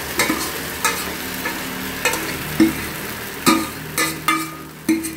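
Steel spoon scraping and clinking against a stainless-steel bowl, about eight sharp metallic clinks, as the last of the batter is scooped into a hot non-stick appam pan. A steady sizzle runs underneath.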